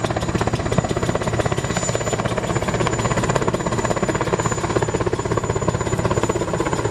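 Helicopter sound effect: steady, rapid rotor chop with an engine drone beneath it.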